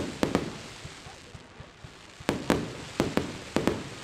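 Fireworks going off: two sharp bangs right at the start, then after a lull of about two seconds a run of six more bangs in quick pairs, each followed by a short echoing tail.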